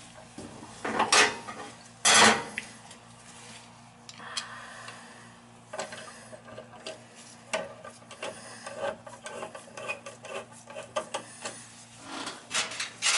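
A screwdriver turning the handle screw into a brass washing-machine outlet valve: two loud scraping rubs in the first couple of seconds, then a quick run of small metallic clicks and scrapes as the screw is driven home.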